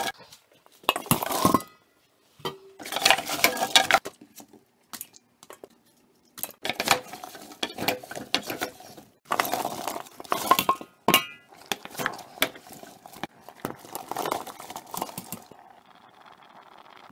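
Apple quarters tumbling into a stainless steel stockpot in several bursts, knocking against the metal, then a wooden spoon stirring the apple pieces around the pot.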